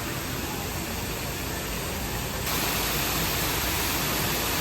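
Steady, fairly loud rushing noise with no distinct events, stepping up louder about two and a half seconds in.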